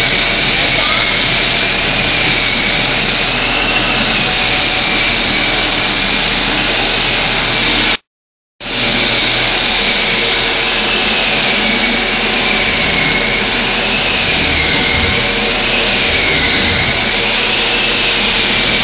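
Loud, steady machine noise, like a motor-driven blower, with a high whine that wavers slowly up and down in pitch; the sound cuts out completely for about half a second partway through.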